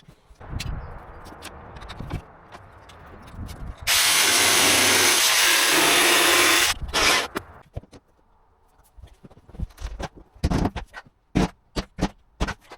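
A power saw cuts through a laminate floorboard, running loud and steady for about three seconds after a quieter stretch of handling noise. Afterwards comes a run of sharp knocks and taps as boards are handled and fitted.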